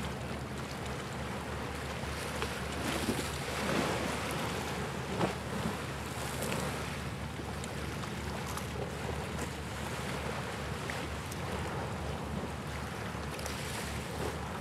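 Wind buffeting the microphone over the wash of sea waves, a steady noisy rumble with a few brief louder gusts about three to five seconds in.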